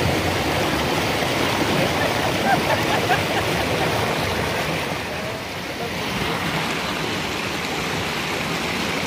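Rushing river water, a steady even noise, with faint voices in the first few seconds.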